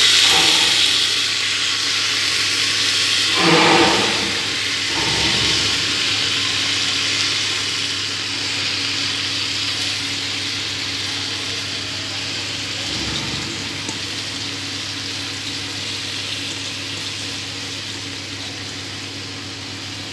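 Uncooked rice poured into a pressure cooker of hot frying vegetables and masala. A rush of sizzling comes as the grains land, with a second surge about three and a half seconds in, then a steady sizzle that slowly fades.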